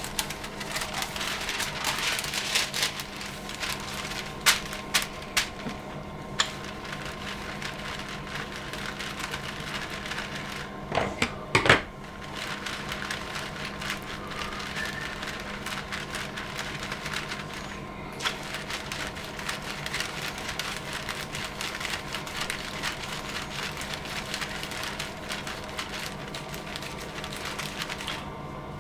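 Baking paper crinkling and rustling as a rolling pin flattens minced beef between two sheets, with a few sharp knocks, the loudest about 11 to 12 seconds in. A faint steady hum runs underneath.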